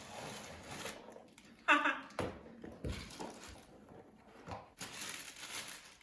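Handling noise from unpacking a studio light stand: faint rustling and a few light knocks, with one short pitched sound about two seconds in.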